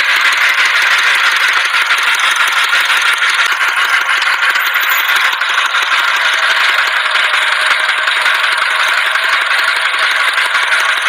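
Dump truck engine idling steadily with a rattle.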